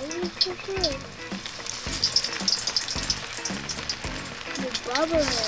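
Chicken fingers deep-frying in hot oil in a kadai: a steady bubbling sizzle crackling with many small pops.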